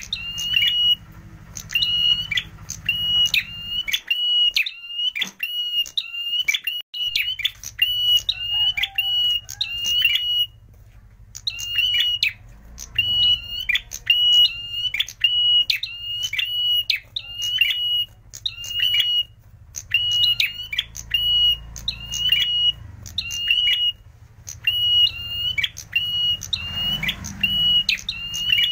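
Prenjak merah calling: sharp, high, piercing notes repeated over and over in quick runs, with one short pause about ten seconds in.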